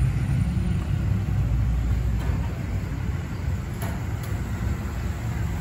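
Steady low rumble of street traffic, without voices.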